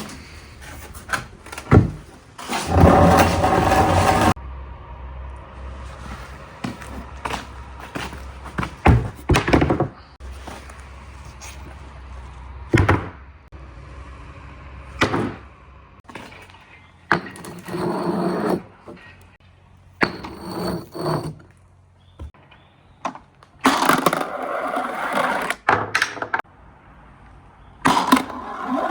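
Marbles rolling and clattering through a water-flow marble run, with many sharp knocks and clicks as they strike the track and its parts, and several stretches of a louder rolling rush lasting a second or two as batches run through together.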